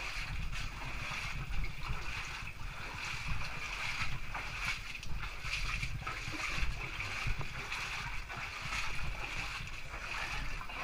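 Stream water running steadily through a narrow rocky channel, with low rumble and scattered knocks from the helmet-mounted camera moving.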